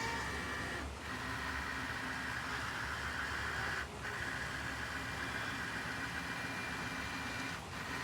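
2017 Ford F-250 pickup engine idling steadily, with three brief dips in level.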